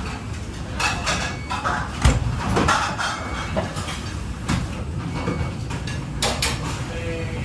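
Busy commercial kitchen: a steady low rumble with sharp knocks and clatters of pans and plates, the loudest about two seconds in, and faint voices in the background.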